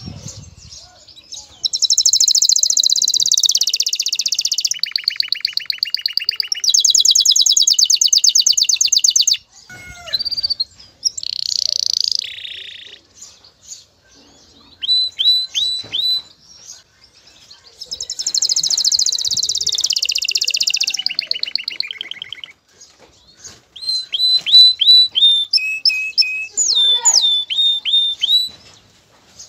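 Male canary singing its courtship song in breeding condition. The song is made of long, very fast trills lasting several seconds, changing pitch from one trill to the next, with runs of short, sharp chirp notes between them.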